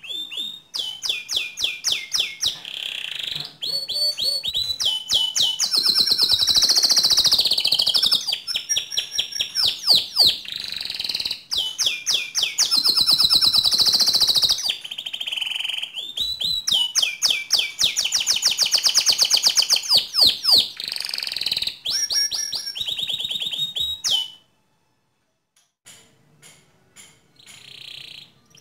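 Domestic canary singing a long, loud song of rapid trills and fast repeated high notes, changing from one roll to the next. It breaks off suddenly about 24 seconds in, and a few fainter notes follow.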